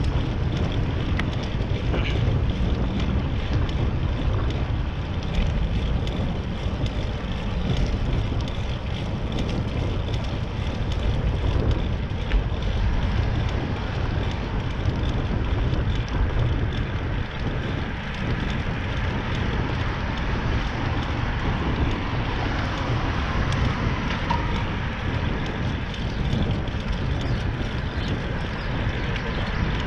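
Steady wind rumble on the microphone of a moving bicycle, with road noise from the ride underneath.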